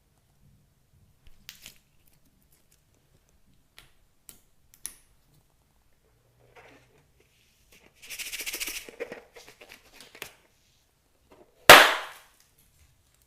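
Slime being mixed by hand: scattered soft sticky clicks, a crackling stretch about eight seconds in, and one loud sharp pop near the end as an air pocket in the slime bursts.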